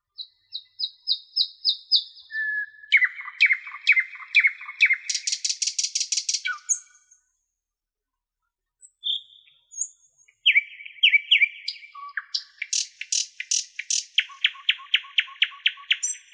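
Songbird singing in phrases of rapid repeated notes and trills, some high and thin, some lower and buzzier. There is a pause of about three seconds in the middle, broken only by a couple of short notes, before another run of trills.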